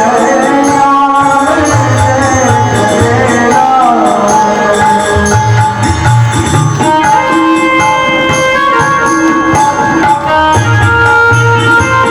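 Devotional music: held keyboard-like tones over a steady drum rhythm.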